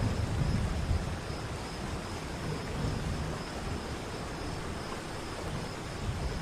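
Waterfall: a steady rush of falling water with a deep, uneven rumble underneath.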